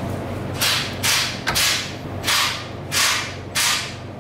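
Six quick whooshing rushes, about one every 0.6 s, as a Miata's hood is worked up and down to test-fit a gas hood shock. A steady low hum runs underneath.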